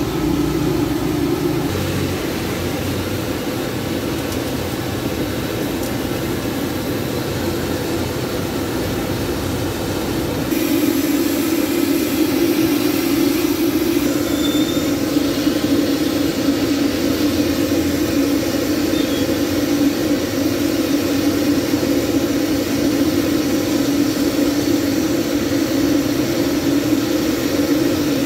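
Deep-frying at a street stall: the steady roar of gas burners under two large woks, with battered chicken sizzling in bubbling oil. It grows a little louder about ten seconds in.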